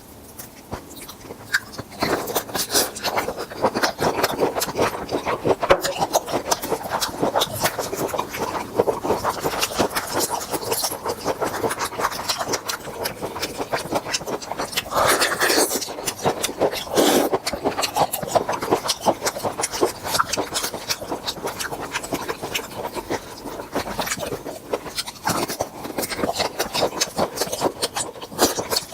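Close-miked eating sounds of grilled tiger prawns: shells crackling and crunching in quick, irregular clicks, starting about two seconds in.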